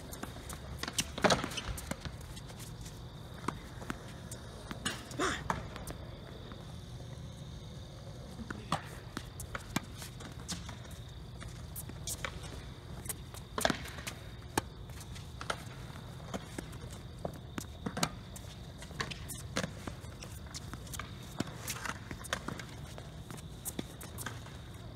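Tennis ball being hit back and forth on a hard court: sharp pops of racquet strings striking the ball and the ball bouncing, every second or two, with footsteps between shots. The loudest strikes come about a second in, near five seconds and near fourteen seconds.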